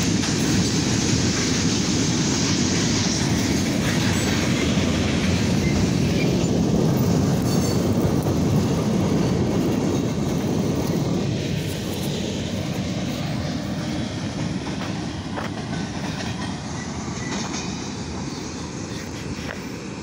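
Freight train cars rolling past, giving a steady noise of wheels on rails. It grows quieter from about halfway through as the train moves off.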